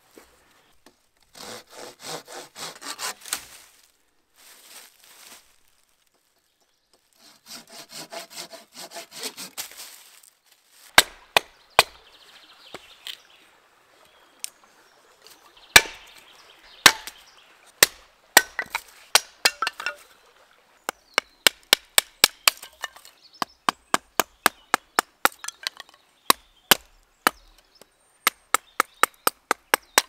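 Wood being cut and split by hand: two runs of quick rasping strokes like a small saw or blade, then a long series of sharp wooden knocks and cracks, about two a second in the last third.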